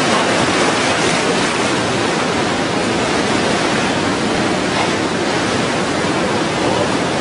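A river in full flood, brown floodwater rushing past in a steady, loud, unbroken roar.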